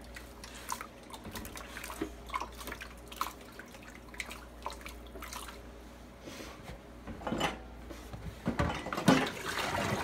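Water splashing and dripping as a wet skein of dyed wool yarn is lifted and handled in a plastic tub of water in a stainless steel sink, with irregular small splashes that grow louder and busier near the end.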